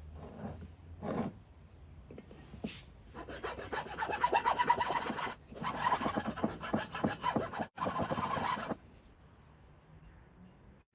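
A saw cutting through a piece of wood with rapid back-and-forth strokes, in three spells with short breaks, stopping shortly before the end.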